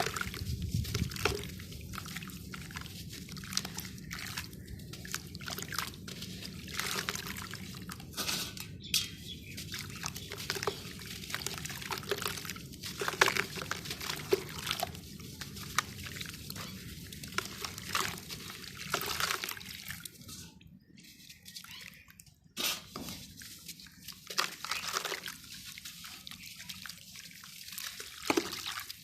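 Dry dirt and sand-cement lumps crumbling into water: irregular crackling, fizzing and small splashes and drips as the pieces break apart and dissolve, with a brief quieter spell about two-thirds of the way through.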